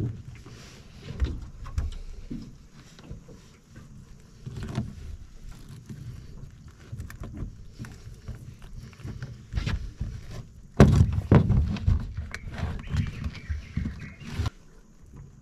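A crab pot and mud crabs being handled in a small boat: irregular knocks, thumps and scraping, with a cluster of heavier thumps about eleven seconds in.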